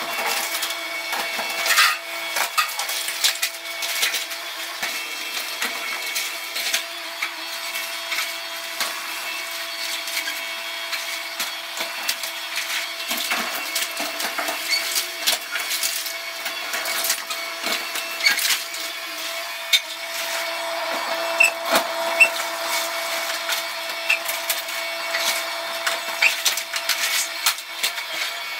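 Yanmar mini excavator with a hydraulic crusher jaw breaking up brick and concrete walls. Masonry cracks and crumbles and rubble falls in an irregular run of sharp knocks and crunches, over a steady whine from the machine.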